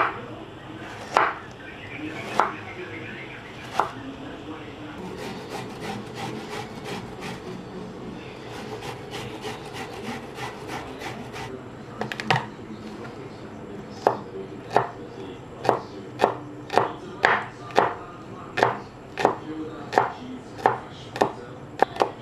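Knife chopping on a wooden cutting board: sharp chops, scattered at first, then steady at about one to two a second in the second half.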